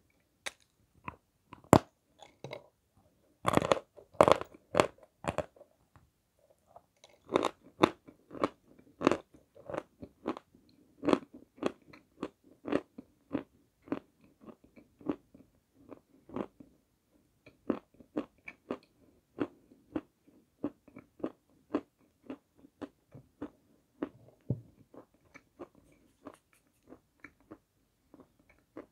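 Crunchy bites into a lump of Malomikhailovsky edible chalk, then steady crunching as it is chewed. A few loud bites come in the first few seconds, then the crunches settle to one or two a second and grow softer toward the end.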